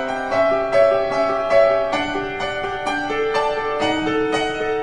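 Piano music: a slow melody of held notes, a new note struck about every half second.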